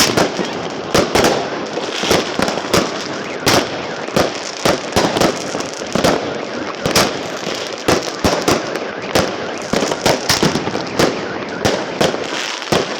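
Fireworks going off, dense, irregular bangs several times a second over a continuous crackle.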